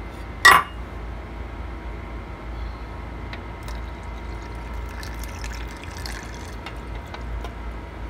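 Water poured from a pitcher into a glass blender jar holding blended mango. A single sharp glass clink about half a second in is the loudest sound.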